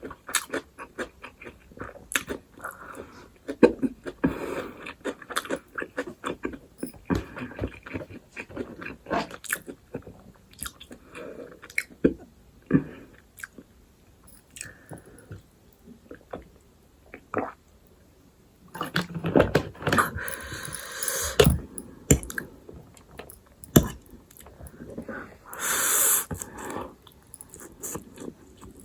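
Close-up eating sounds: a mouthful of stir-fried Wai Wai instant noodles being chewed, with many small wet mouth clicks and smacks. About two-thirds of the way through come a few louder, noisier stretches of eating and a brief hiss.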